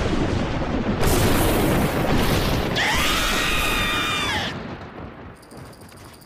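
Cartoon sound effect of a loud rumbling blast that dies away after about five seconds. About three seconds in, a cartoon character screams over it in a high voice that rises and then falls.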